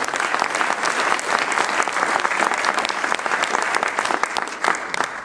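Audience applauding: steady, dense clapping that begins to thin out near the end.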